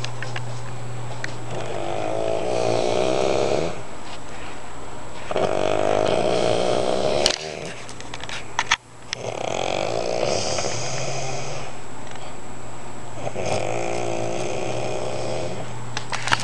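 A sleeping man snoring crazy loud, four long rough snores about four seconds apart, over a steady low hum.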